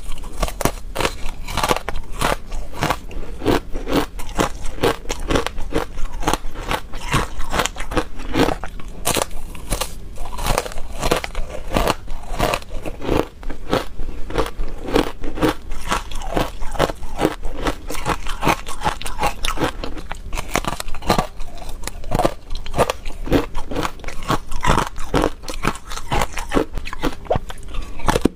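Ice bites coated in matcha powder being bitten and chewed: a dense, continuous run of crisp crunches and crackles, with a brief pause about 13 seconds in.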